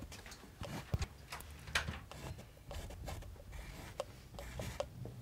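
Paintbrushes on canvas: faint scratchy stroking and dabbing as paint is brushed on, with scattered small taps.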